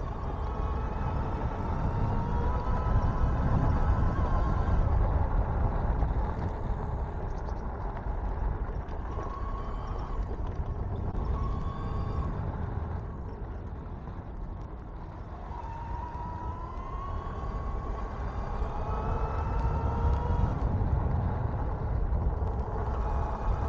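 Electric bike under way: the motor's whine rising and falling in pitch with speed, over a steady low rumble of wind and tyre noise.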